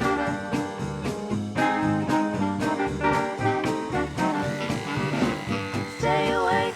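Swing-style background music with a steady beat.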